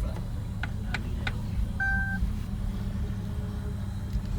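Steady low rumble of vehicles running, with a few sharp clicks in the first second or so and one short electronic beep about two seconds in.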